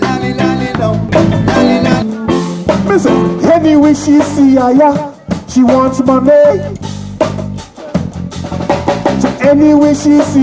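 Live reggae band playing: drum kit beat with keyboard and electric guitar, and a melody line bending over it.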